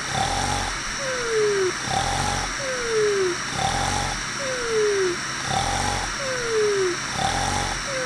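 Cartoon snoring sound effect. Each snore is a short buzzy in-breath followed by a falling whistle, repeating evenly about every second and a half.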